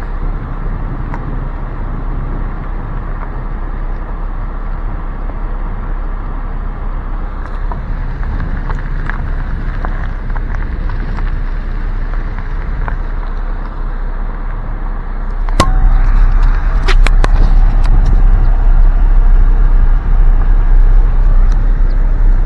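Car moving slowly, heard from inside the cabin as a steady low rumble. About two-thirds of the way through, a few sharp clicks come, and then the rumble becomes much louder and deeper.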